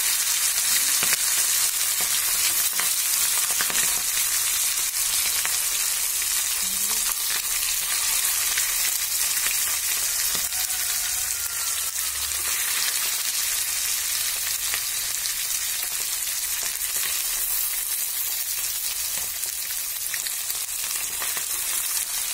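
Marinated tilapia pieces frying in hot coconut oil: a steady sizzling hiss with small scattered pops that slowly grows quieter.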